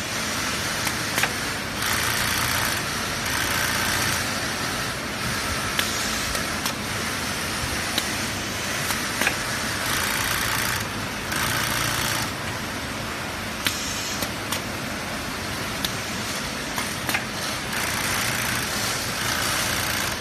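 Robot-mounted tufting gun running on a vertical tufting frame, punching yarn into backing cloth: a steady mechanical noise that grows louder in stretches of a second or two, with scattered sharp clicks.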